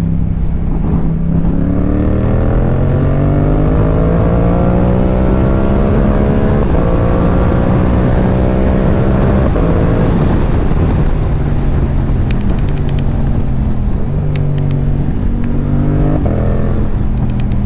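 A 2022 Yamaha YZF-R7's 689 cc parallel-twin engine, breathing through a Yoshimura R77 carbon-fibre exhaust, rising steadily in pitch as it pulls in gear for about eight seconds. It then eases off, with a few short drops and rises in pitch, and climbs again near the end.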